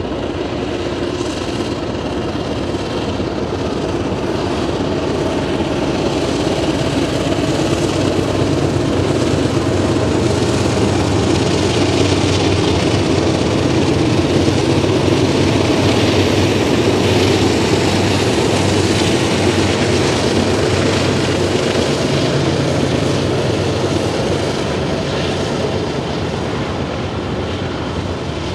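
BNSF freight train's diesel locomotives working upgrade past at close range: engine drone with the rumble of wheels on rail. It builds to its loudest about halfway through, then eases off as the units move away.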